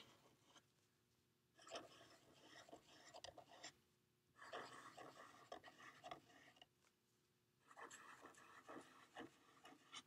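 Felt-tip marker scratching faintly on paper in short, quick strokes as small scalloped feather lines are drawn, in three spells with short pauses between.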